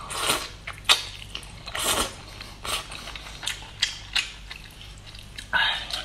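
Close-up eating sounds of noodles: several noisy slurps as the noodles are drawn into the mouth, with short wet clicks and smacks of chewing between them.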